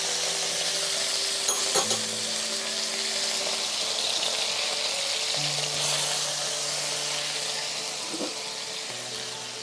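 Chili-garlic oil sauce with soy sauce, vinegar, sugar and salt sizzling in a hot nonstick wok while a spatula stirs it. The sizzle eases a little near the end. Soft background music with held notes plays underneath.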